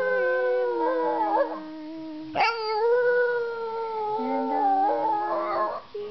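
An 8-month-old Boston Terrier howling in long, drawn-out notes. A second howl starts with a sharp rise in pitch about two and a half seconds in, and it wavers and breaks up near the end.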